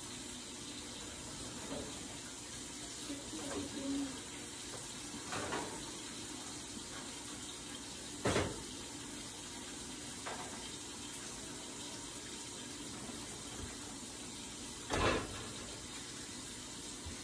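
Eggs sizzling steadily in a frying pan on a gas stove, with two dull thumps about eight and fifteen seconds in from the oven door being opened and shut.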